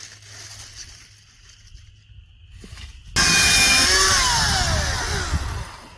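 Faint rustling of brush, then about three seconds in a motor saw comes in abruptly and loud, cutting wood, its pitch sliding down as it slows before it stops near the end.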